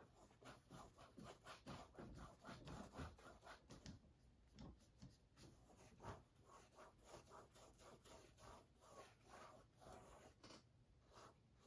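Faint, quick, irregular rubbing strokes of acrylic paint being worked onto a canvas, several a second at first and sparser later.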